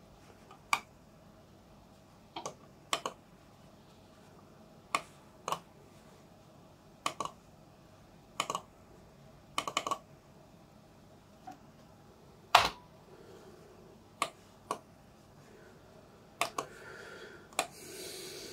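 Scattered sharp clicks of an Amiga computer's controls being operated, a dozen or so at irregular intervals of a second or more, several of them in quick pairs like double-clicks. A soft rustling rises near the end.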